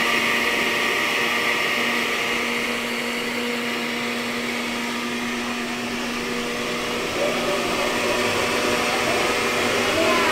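Countertop electric blender running steadily with a constant motor hum, blending a watermelon agua fresca.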